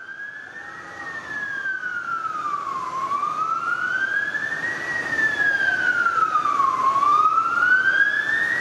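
Fire truck siren on a slow wail, rising and falling about every two seconds. It gets steadily louder as the truck approaches, with road noise underneath.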